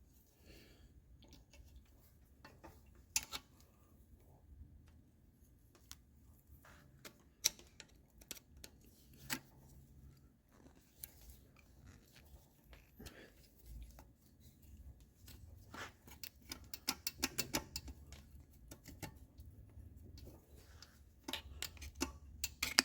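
Hand tools clicking and tapping on the metal governor arm and linkage of a Kohler K321 engine as it is worked loose, scattered single clicks with a run of rapid ticks about 17 seconds in.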